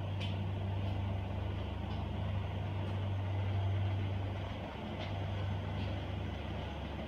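Steady low hum of running commercial kitchen equipment, with a few faint ticks.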